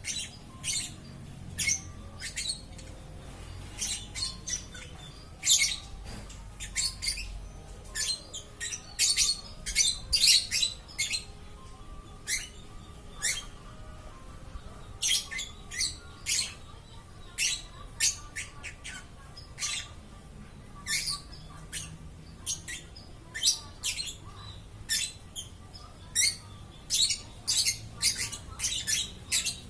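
Lovebird squawking and chirping almost without pause: short, sharp, high calls in quick irregular runs of several a second, broken by brief gaps.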